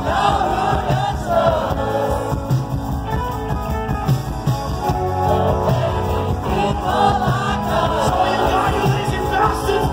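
Rock band playing live through a loud PA, heard from the crowd: drums, bass and electric guitar with a sung lead vocal, the melody most prominent in the first second and again from about seven seconds in.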